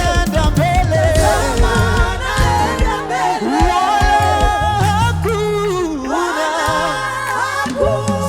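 Live gospel praise-and-worship music: singers over a band with bass and drums.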